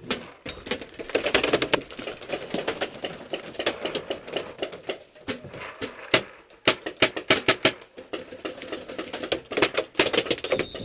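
Heavy paintball fire: dense, irregular rapid pops of paintball markers firing and paintballs smacking around the tower, with a few short lulls.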